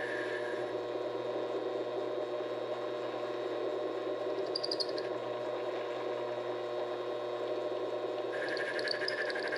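Vevor 7x12 mini-lathe running steadily while turning aluminum stock. A higher whine drops out just after the start and comes back near the end, and there is brief high chatter about halfway through.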